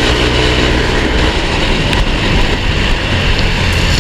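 Yamaha Aerox 155's single-cylinder engine breathing through a JVT Pipe V3 aftermarket exhaust set to its middle setting, running flat out at high speed. The engine's drone is mixed into a heavy, steady rush of wind noise.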